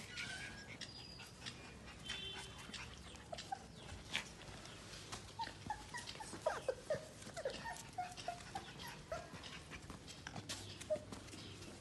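Chow chow puppies giving scattered short, high whimpers and squeaks, most of them in the middle, among small sharp ticks and taps.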